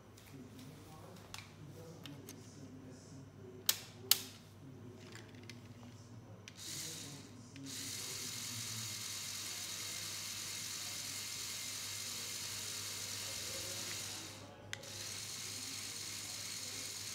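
Small electric motor of a LEGO Technic 6x6 All Terrain Tow Truck whirring steadily through its gearing as the crane boom is raised. The whirring starts about eight seconds in and stops briefly just after fourteen seconds before running on. Earlier there are two sharp clicks about four seconds in.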